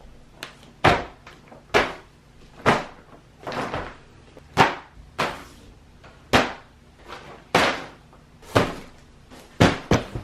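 A series of about a dozen sharp thuds or slams, roughly one a second and uneven in strength, each dying away quickly.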